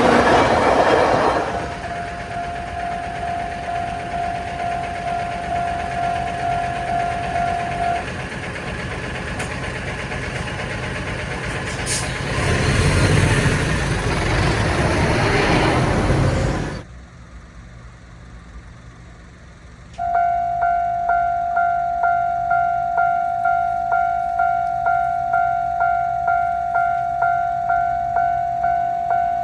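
Japanese railway level-crossing warning bell ringing its repeated "kan-kan" while a train runs over the crossing, with the rumble of wheels on rail. After a sudden cut and a few seconds of quiet, another crossing's warning bell starts up, ringing at about two to three strikes a second.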